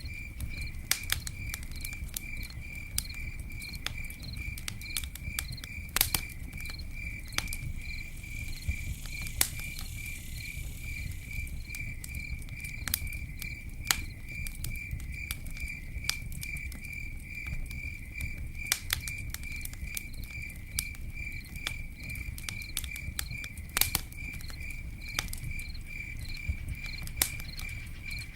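Campfire crackling, with irregular sharp pops and a low rumble underneath, and a brief hiss about a third of the way in. A cricket chirps steadily throughout in a fast, even pulse.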